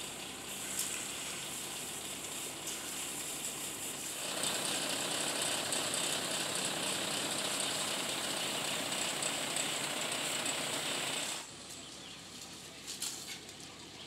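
A concrete mixer truck running while workers rake and spread wet concrete across a slab, with a steady scraping, gritty noise. It gets louder about four seconds in and drops suddenly a few seconds before the end.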